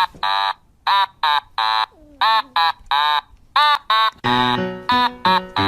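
A rapid series of short, high, squeaky calls, each rising and falling in pitch, about two or three a second. Background music with a bass line comes in about four seconds in.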